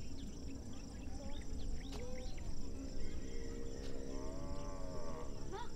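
Insects trilling steadily, with a faint drawn-out call in the distance from about two and a half seconds in until shortly before the end.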